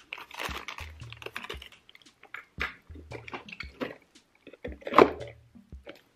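Background music with a slow repeating bass beat, over the rustle of clear plastic packaging and the clicks and knocks of small metal carousel parts being handled on a table. There is one louder knock about five seconds in.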